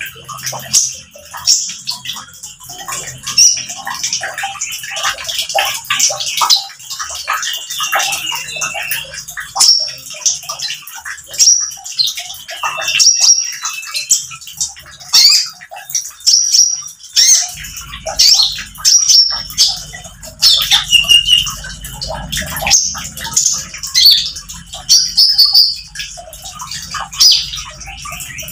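Caged male kolibri ninja (Van Hasselt's sunbird) singing its fast 'nembak' song, a quick run of high, sharp chirps and twitters in repeated loud bursts, with some wing fluttering. It is the kind of song keepers use as a lure to get other konin singing.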